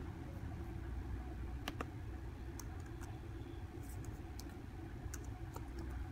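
Keys on a computer keyboard clicking one at a time in an irregular string as a Wi-Fi password is typed, starting a couple of seconds in, over a steady low hum.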